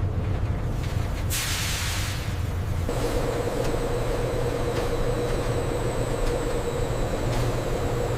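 Factory processing machinery running steadily with a low hum. Just over a second in a hiss starts and lasts about a second and a half, and a steady mid-pitched whine then sets in over the machine noise.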